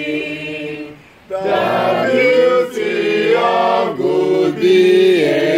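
A group of men and women singing a school anthem together, holding long notes, with a short pause for breath between lines about a second in.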